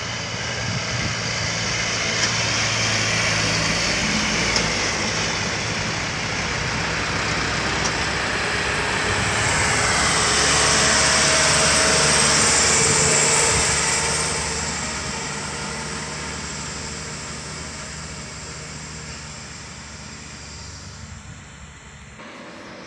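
Truck engines running as the trucks work through a sharp bend. The sound grows louder to a peak about halfway as one light truck passes close, then fades steadily as it moves away.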